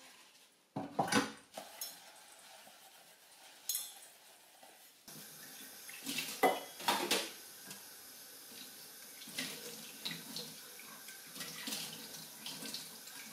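Washing up at a kitchen sink: dishes knock and clatter, then about five seconds in the tap comes on and water runs steadily into the sink while crockery is rinsed and knocked against the basin.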